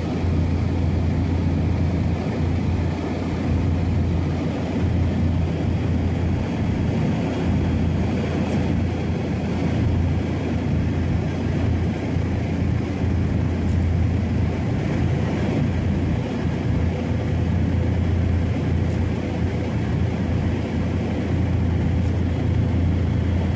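Light propeller aircraft's engine and propeller droning steadily in level flight, heard from inside the cabin, with a strong low hum.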